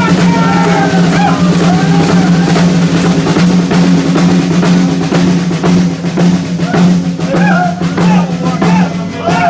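Rock drum solo on a full drum kit: snare, tom and kick-drum hits with rolls, getting faster and denser in the last few seconds, over a steady low hum.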